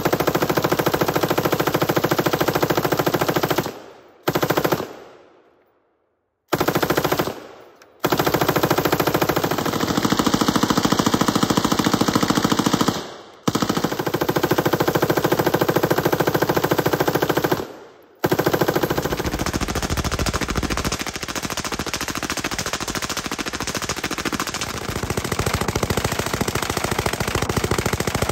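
M249 SAW belt-fed light machine gun firing long full-auto bursts of 5.56 mm rounds, a rapid, even stream of shots. The bursts run for several seconds each, broken by short pauses, the longest about five seconds in. From about twenty seconds on, the fire runs unbroken.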